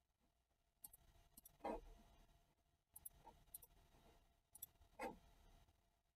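Faint computer mouse clicks, about five of them scattered through the quiet, with two slightly louder soft knocks, one near the two-second mark and one about five seconds in.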